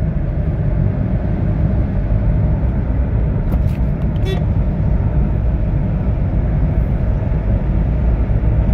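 Steady in-cabin drone of a Suzuki Cultus AGS driving at about 50–60 km/h: its three-cylinder engine and road noise, heavy in the low end.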